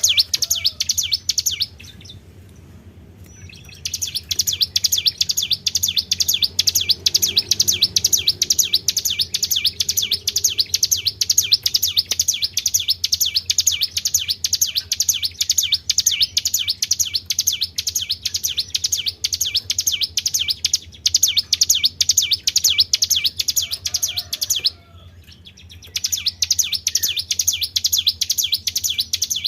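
Small songbird singing a very fast, high-pitched trill in long unbroken runs, pausing twice: for about two seconds early on and for about a second near the end. This is the 'tribel' bird-call recording played to lure other birds into singing.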